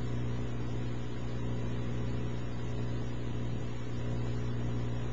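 Steady low electrical hum with a light hiss, even in level and unchanging.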